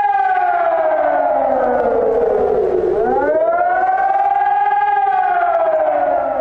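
Emergency warning siren wailing, its pitch sliding slowly down and back up, about once every five seconds.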